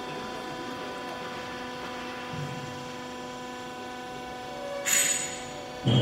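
Steady electric hum of a hydraulic baler's power unit running, with a short clatter about five seconds in and a low thump at the very end as scrap material is pushed into the baler.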